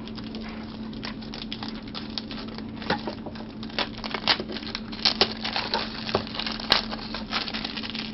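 Hands handling the unboxed speed cube's packaging and accessories: plastic crinkling and rustling with scattered light clicks and taps, busier in the second half, over a steady low hum.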